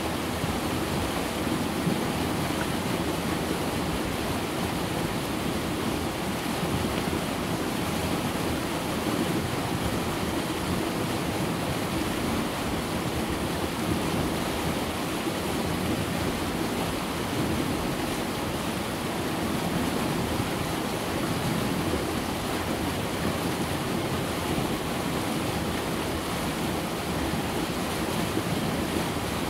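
The River Conwy rushing over rock ledges and through small rapids: a steady, unbroken rush of water.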